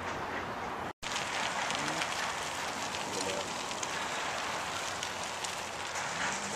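Steady, crackling outdoor background noise, broken by a brief dropout about a second in.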